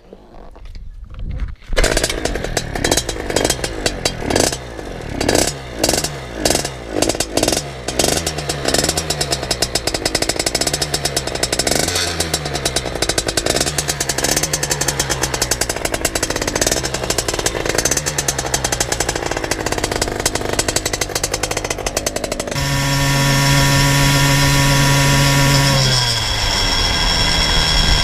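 Motorized bicycle's small two-stroke engine catching about two seconds in, blipped in a string of short revs, then running at a rough idle while it warms up. Near the end it runs at a steady higher speed as the bike is ridden, and its pitch drops once.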